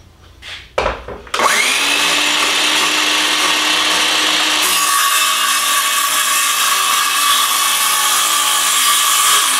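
DeWalt circular saw started about a second in, its whine rising as the blade spins up, then running steadily. About halfway through, the blade goes into a wooden board for a freehand crosscut and the sound turns harsher. A few handling clicks come before the start.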